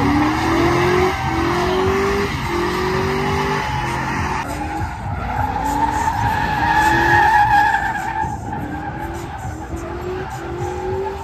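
Single-cab Chevrolet pickup doing a burnout and donuts: tyres squealing steadily while the engine revs up in repeated rising surges, about one a second.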